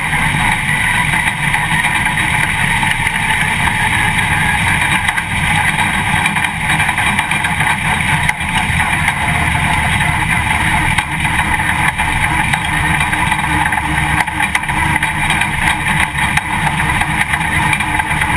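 Dirt late model race car's V8 engine running at speed around a dirt oval, heard from inside the cockpit: a loud, steady drone that holds nearly the same pitch throughout.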